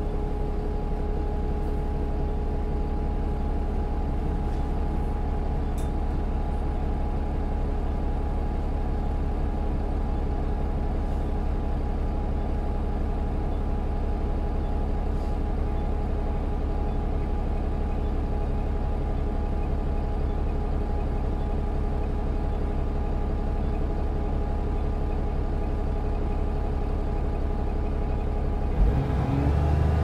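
Bus engine running steadily, a low rumble with a steady whine above it. About a second before the end there is a knock, then the sound gets louder and its pitch starts to shift.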